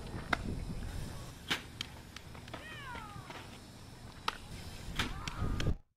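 Sharp pops of softballs being hit and caught in fielding practice, heard over low outdoor rumble, with one short call that falls in pitch about three seconds in. The sound cuts off suddenly near the end.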